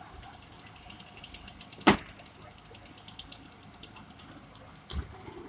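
Scattered faint clicks and knocks, with one sharp knock about two seconds in and a smaller one near the end.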